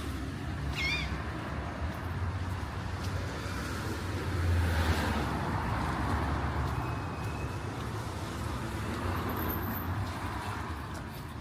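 City street traffic, with a vehicle passing and swelling loudest about halfway through. A cat gives a short meow about a second in.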